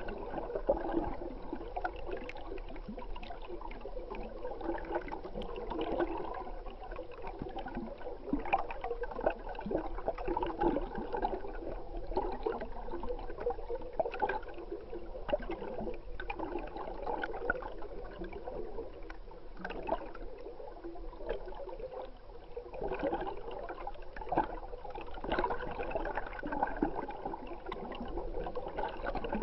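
Stream water gurgling and churning, heard muffled through an underwater camera's housing, with scattered small clicks and ticks.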